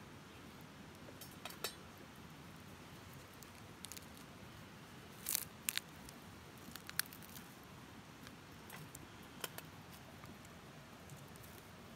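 A few small, sharp clicks and crackles at a campfire, with the loudest cluster about five and a half seconds in and single ones scattered before and after, over a faint steady hiss.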